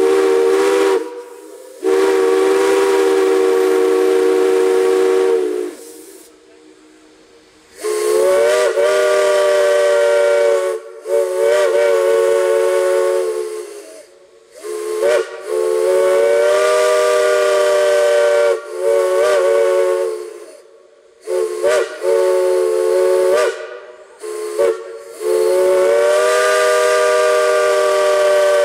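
Multi-chime steam whistle sounding a chord of several tones with a hiss of steam, blown in long blasts of about three to four seconds broken up by short toots. Each long blast slides up slightly in pitch as it opens.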